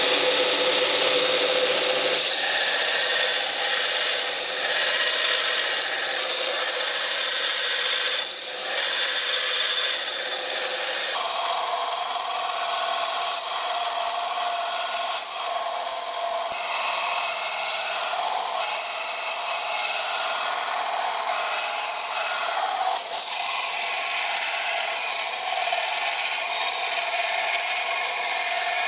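A power grinder working the steel of a knife blank: a steady high whine over a grinding hiss, which shifts abruptly in pitch and tone three or four times.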